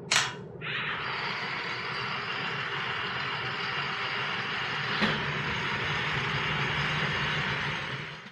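Two sharp clicks as the cars are switched on, then the steady whir of two battery-powered Tumble Buggy constant velocity toy cars driving along a tabletop, their small electric motors and gears running evenly. One car runs on a single C cell, so it is the slower of the two. A light tick comes about five seconds in, and the whir fades out just before the end.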